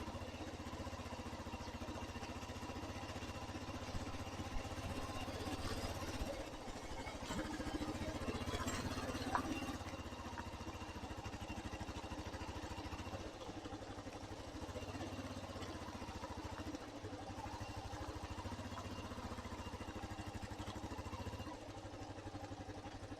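Motorcycle engine running steadily at low revs, with a slight rise and fall in level.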